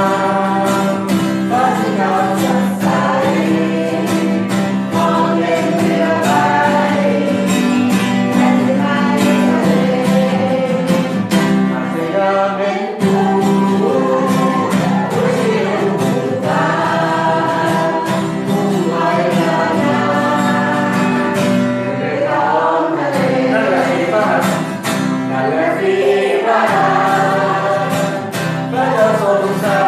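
A church worship group singing a Christian worship song together, with strummed guitar accompaniment.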